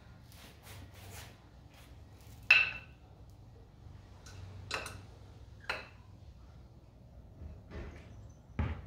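Sharp metallic clinks of hand tools and hardware on a motorcycle's rear shock: three separate clinks a second or two apart, the first loudest with a short ring, then a duller knock near the end.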